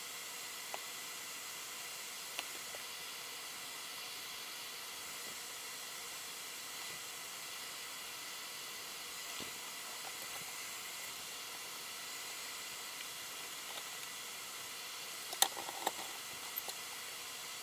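Steady faint hiss with a few light clicks, including a short cluster of them about fifteen seconds in.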